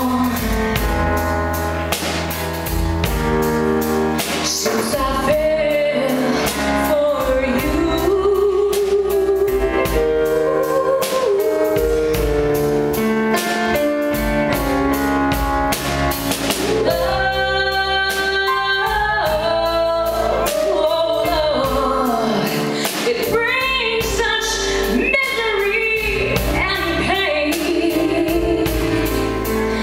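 A woman singing a ballad into a microphone, backed by a live band with drums.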